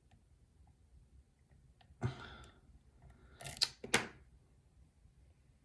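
Faint small ticks of a lock pick working the pins of a pin-tumbler challenge lock under tension, broken by a short rustle about two seconds in and two louder, sharper rustles around three and a half to four seconds in.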